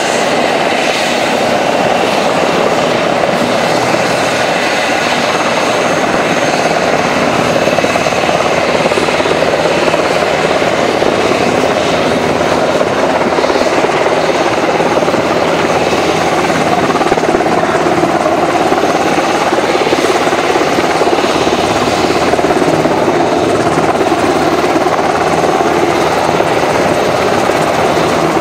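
Helicopters running: steady, loud rotor and turbine noise.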